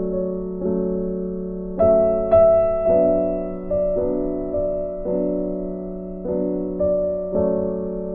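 Background music: a gentle electric piano playing sustained chords, each struck and then fading, about one every half second to second.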